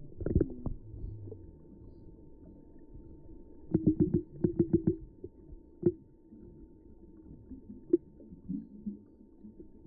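Muffled underwater sound recorded by an iPhone held under cold water: a low murky rumble of moving water with a faint steady tone. About four seconds in comes a quick run of soft knocks, with single knocks near six and eight seconds.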